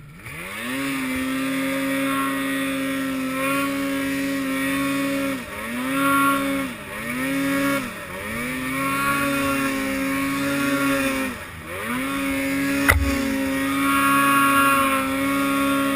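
Arctic Cat M8 snowmobile's two-stroke engine revving hard, the throttle let off and opened again several times so the pitch drops and climbs back. A sharp knock sounds late on.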